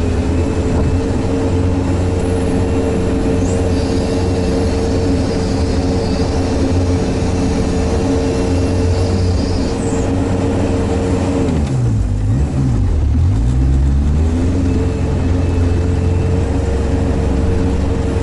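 Sherp all-terrain vehicle's engine running steadily under way. About two-thirds of the way through the revs drop sharply, then climb back to the same steady note a few seconds later.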